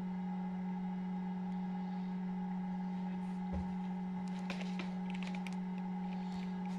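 Incubator running with a steady electric hum, one low tone with fainter higher ones. A soft thump comes about three and a half seconds in, followed by a scatter of faint clicks and scratches.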